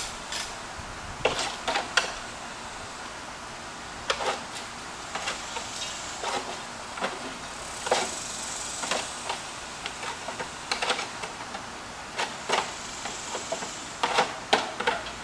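Irregular short knocks and scrapes from hand work at a house's roof eaves during a bee-hive removal, coming singly or in quick clusters over a steady hiss.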